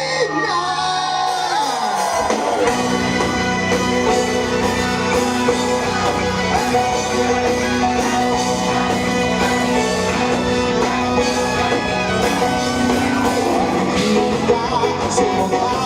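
Live rock band playing: electric guitar with sliding notes at first, then the full band with bass and drums coming in about two and a half seconds in.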